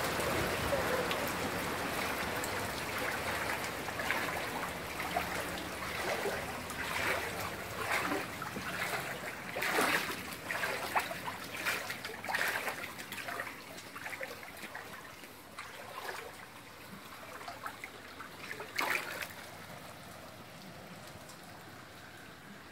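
Knee-deep floodwater sloshing and splashing as someone wades through it: a run of irregular splashes that die away near the end, over a steady trickle of water.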